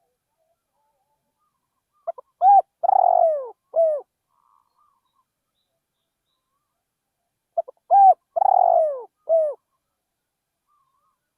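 Spotted dove cooing: two song phrases about five seconds apart. Each phrase is a few short notes, then one longer, drawn-out coo and a last short note.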